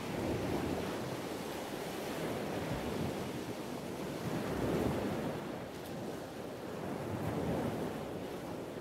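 Ocean surf: waves washing in and drawing back, rising and falling in slow swells a few seconds apart.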